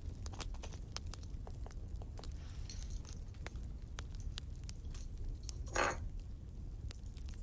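Christmas baubles clinking lightly as they are handled, over the scattered crackle of a wood fire. One louder short burst comes near the end.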